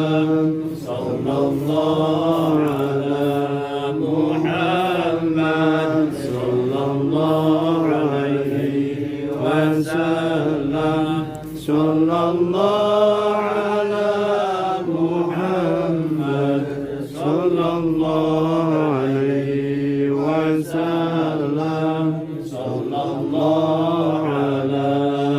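A group of voices chanting together in unison, in long held phrases whose pitch slides slowly up and down, with brief breaks for breath between phrases.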